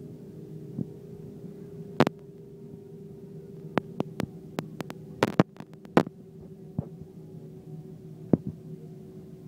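Steady hum inside the cabin of an Airbus A321 taxiing, with a low drone and a higher steady tone. Over it come irregular sharp clicks and knocks, the loudest about two and six seconds in.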